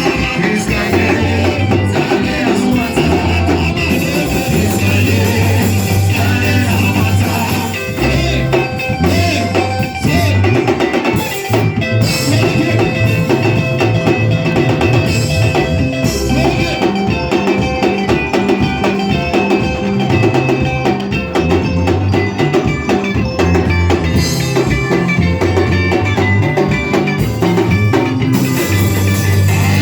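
Live band music with drum kit, bass and guitar, and some singing.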